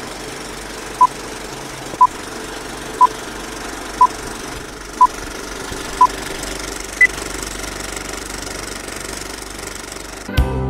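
Old-film countdown leader sound effect: a film projector's steady whirring rattle, with a short beep once a second six times, then one higher beep. Music comes in near the end.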